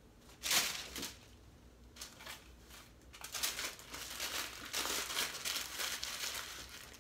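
Dry corn husk and paper crinkling and rustling as a husk-wrapped tamal is folded into a sheet of paper: a sharp rustle about half a second in, another near one second, then steady crinkling from about two seconds on.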